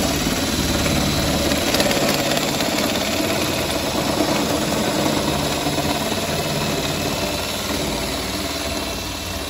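Ridgid cordless drill driving a sheet-metal shear attachment, running steadily with a rapid chattering as it cuts through the rusty steel of a car's quarter panel around the wheel arch.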